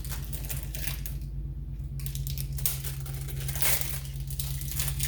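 Scattered small clicks and rustles of parts and tools being handled at a workbench while wheel bearing seals are readied for fitting, over a steady low hum.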